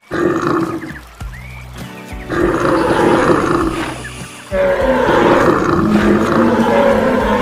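Music layered with wild-animal sound effects: roars and calls over a busy, dense mix. The sound changes abruptly at a few points, about a second in, at two seconds and near four and a half seconds.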